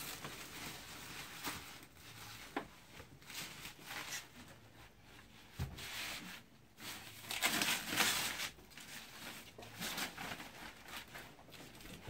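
Rustling and crinkling of a thin white protective wrap being pulled off a new computer monitor, in irregular bursts that are loudest about two-thirds of the way through. There is a soft knock about halfway through.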